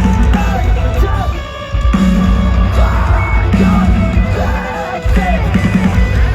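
Metalcore band playing live, heavy guitars and drums with vocals over them. The band drops back twice in brief breaks and then slams back in.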